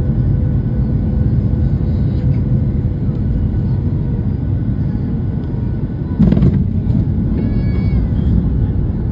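Cabin noise inside a Boeing 737-900 rolling on the ground: a steady low rumble of its engines and wheels, with a brief loud jolt about six seconds in.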